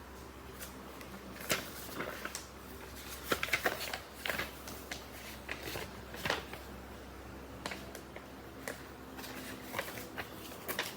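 Irregular small clicks and taps from hands handling objects, a few of them sharper, over a faint steady hum.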